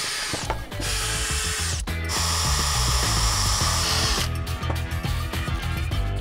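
Cordless drill running in two long bursts, drilling into a fence post, then stopping about four seconds in. Background music with a steady bass runs underneath.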